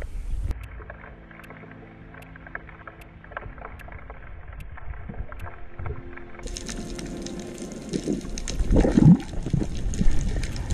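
Sea water heard through a camera at and below the surface: a muffled wash with scattered sharp clicks, then, after a cut about six seconds in, fuller underwater sloshing with strong low surges of water about eight to nine seconds in.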